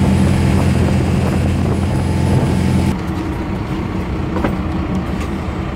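Fishing boat's engine running at cruising speed, a loud steady low drone with rushing wind and water. About three seconds in it drops to a quieter engine hum with a couple of light knocks.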